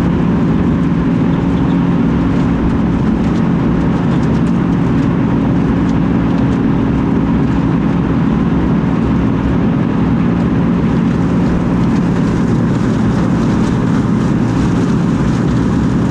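John Deere 9660 STS combine running steadily, an even engine and machine drone with no change in speed.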